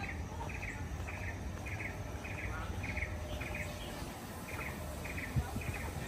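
An insect, cricket-like, chirping steadily: a short chirp repeated about every half second, over a low background rumble.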